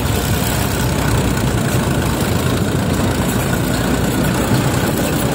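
Sonalika DI 35 tractor's diesel engine running steadily as the tractor drives at road speed, heard close up from on board.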